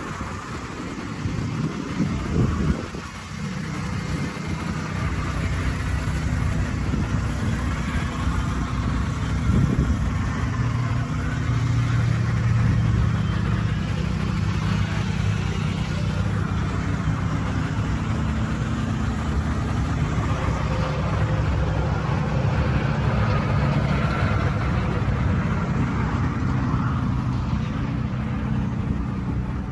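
Truck engine idling steadily, a constant low drone that grows stronger about a third of the way in. Low buffeting on the microphone in the first few seconds.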